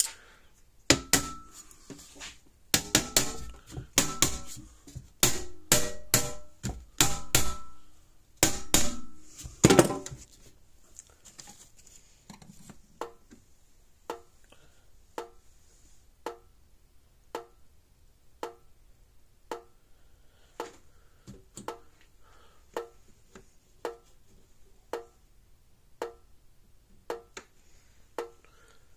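Hol-Dem Super Power 980 solid-state electric fence charger pulsing, a sharp click about once a second. Each click marks an output pulse, the sign that the repaired unit is running. Louder, irregular knocks and clatter fill the first ten seconds.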